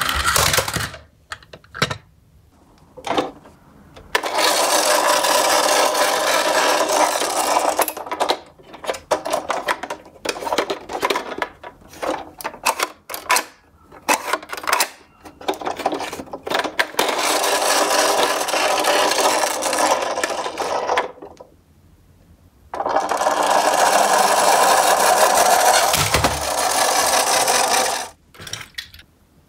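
Toy garbage trucks whirring as they roll across a wooden table, in three runs of a few seconds each. Between the runs come clicks, knocks and rattles as the plastic toys are handled.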